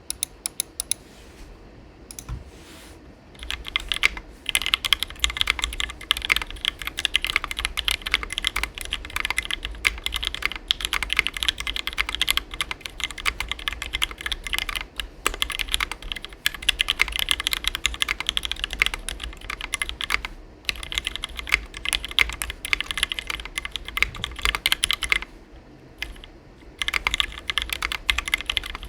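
Fast, continuous typing on a custom 60% mechanical keyboard: a Tofu60 with a brass plate, Gateron Black Ink linear switches lubed with Krytox 205g0 and filmed, and EPBT ABS doubleshot keycaps. The typing starts in earnest about three seconds in, after a few scattered keystrokes, and breaks off briefly around twenty seconds and again for about a second near twenty-five seconds.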